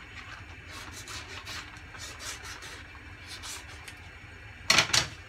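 Kitchen knife scraping and sawing across the top of a plastic pouch to cut it open, in a series of short rubbing strokes, with a loud double rustle near the end.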